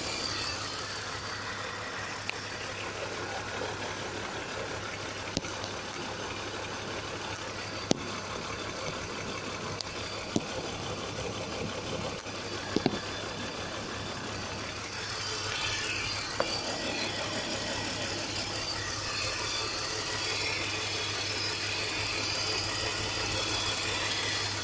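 Car engine idling with a hissing, sucking vacuum leak; the hiss grows louder about two-thirds of the way through as the microphone nears the leak, which sounds like a pipe that has not hooked on properly. A few short knocks sound along the way.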